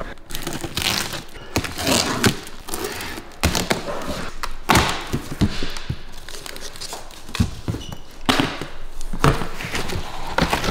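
Repeated knocks and thuds at uneven intervals, with some crinkling, from heavy cardboard boxes of car wheels being handled and set down.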